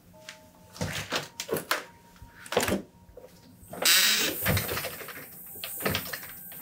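Footsteps and knocks on a wooden floor by a door, then about four seconds in a longer rushing noise and, near the end, a single thump, as a door is opened and shut.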